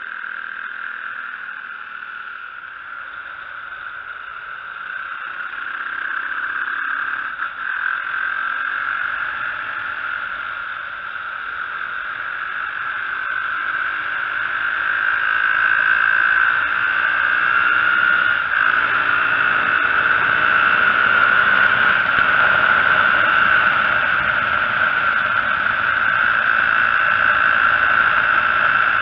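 Off-road motorcycle engine running at speed, its pitch rising and falling with the throttle, with a steady high buzz over it; it grows louder about halfway through.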